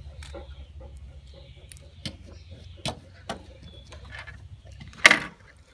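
Scattered light clicks and ticks of a metal grooming comb and scissors working the foot fur of a Newfoundland dog, with one louder, short rustling burst about five seconds in.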